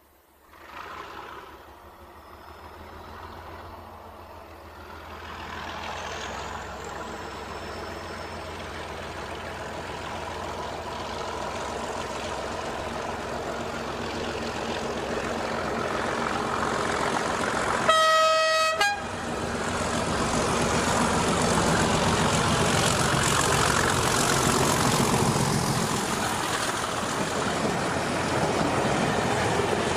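Class 37 diesel locomotive with its English Electric V12 engine approaching and passing with its coaches, growing steadily louder. A single horn blast lasts about a second, a little over halfway through. The wheels and coaches rumble past close by near the end.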